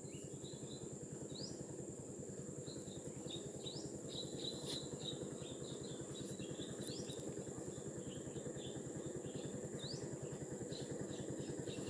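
Small birds chirping in short notes, with a few quick rising whistles scattered through, over a steady high insect whine and a low, fluttering outdoor background noise.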